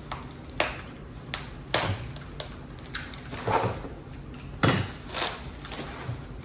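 Sissy bar parts and their packaging being handled: a run of irregular knocks, clinks and rustles, the loudest a little under five seconds in.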